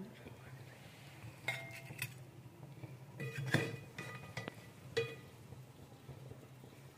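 Perforated steel serving spoon scraping and clinking against a metal cooking pot and a ceramic serving dish as curry is dished out: a handful of short ringing clinks, the loudest about three and a half seconds in.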